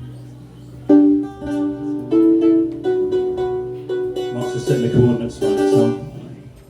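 Plucked acoustic string instrument playing a short melody of single notes, starting about a second in: the live introduction to the song.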